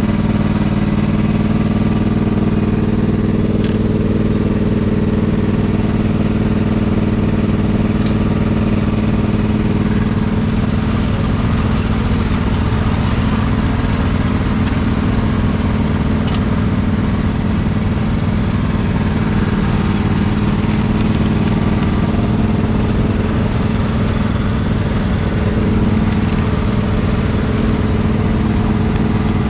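Riding lawn mower engine running at a steady speed, with more rattle and noise mixed in from about a third of the way through.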